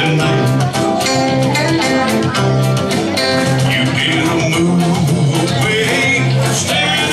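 Live country band playing: an electric guitar over a steady drum beat, with a man's voice singing at times.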